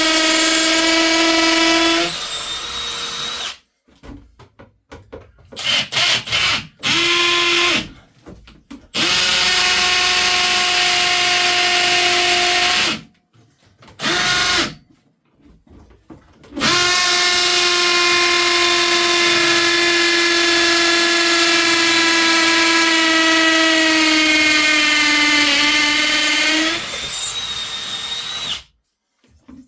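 Power drill boring fixing holes through a UPVC window frame into the surrounding brickwork: a steady high whine in several runs that cut off abruptly, the longest about twelve seconds near the end, its pitch sagging slightly.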